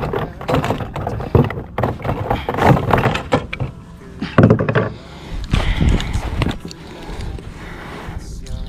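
Handling noise aboard a plastic kayak: irregular knocks, clicks and rustling as a freshly landed largemouth bass and fishing gear are handled, with a louder knock about four and a half seconds in.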